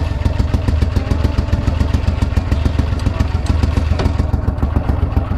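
Duck boat's motor running steadily, with an even, fast pulse.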